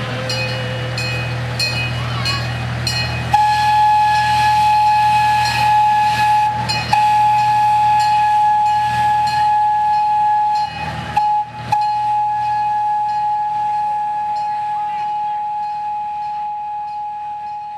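Miniature zoo train running past on its track, with a steady high tone held from about three seconds in and a regular clicking about twice a second; the sound fades near the end as the train moves away.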